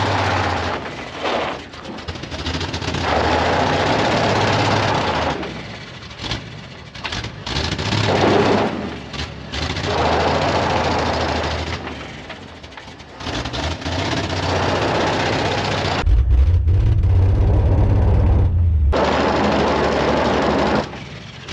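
Ford 300 straight-six in a Jeep J-10 pickup revving in repeated bursts while the rear tires spin and spray gravel and dirt, the loudest and deepest burst about two-thirds through. The front brakes are stuck on, so the front wheels won't turn and the truck is stuck on level ground.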